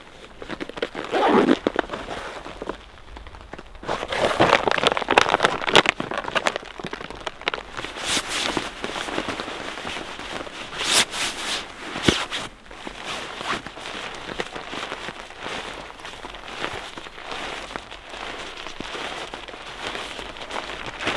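Rustling and crinkling of camping gear being handled and packed up, with many scattered sharp clicks and crackles; the loudest stretch comes from about four to six seconds in.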